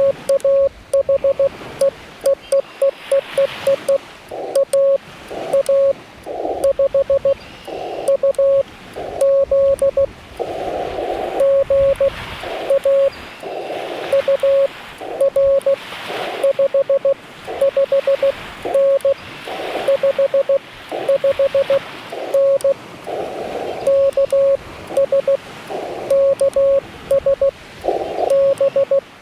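Morse code (CW) from a Yaesu FT-891 transceiver's speaker: a single tone near 600 Hz keyed on and off in quick dots and dashes, alternating with stretches of narrow, hissy band noise from the receiver.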